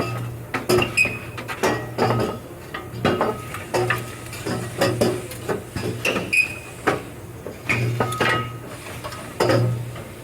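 Metal exhaust pipes clinking and knocking as they are twisted and worked loose from the truck. The knocks are sharp and come roughly twice a second.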